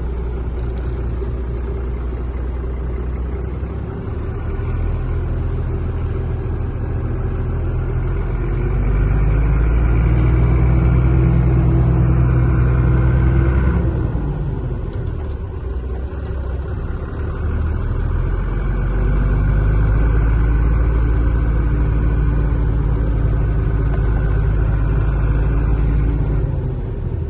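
Truck's diesel engine heard from inside the cab, revving up and pulling under load, easing off about fourteen seconds in, then pulling again.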